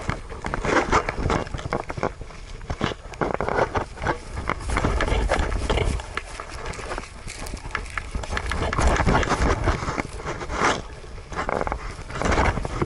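Siberian husky panting as it trots through grass, heard from a camera strapped to its head, with its footfalls, knocks of the camera mount and wind rumbling on the microphone.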